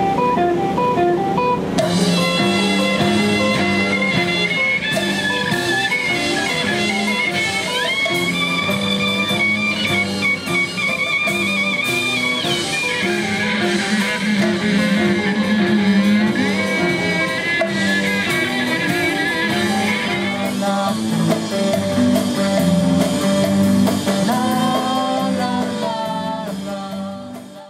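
Live rock band playing: electric guitar, violin and drum kit. The music fades out near the end.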